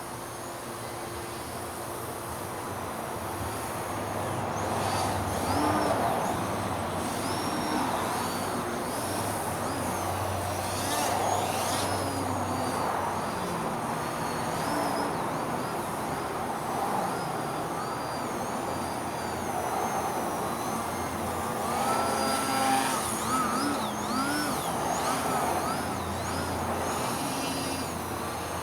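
Small electric RC plane's brushless motor (2200kv, on a 2S lipo) and propeller buzzing in flight, the pitch sweeping up and down again and again as the throttle changes, loudest several times as it passes close.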